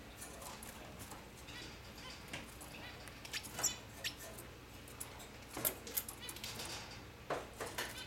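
Caged finches (hooded siskins and canaries) chirping with short, high calls scattered throughout, with a few sharp clicks in between.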